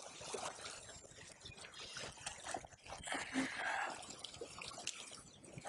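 River water trickling and lapping around fallen logs, with scattered light knocks and scuffs, and a louder splashing stretch about three seconds in.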